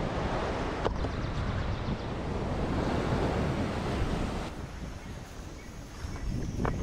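Ocean surf washing ashore, with wind buffeting the microphone. The sound drops for a while about four and a half seconds in and rises again near the end.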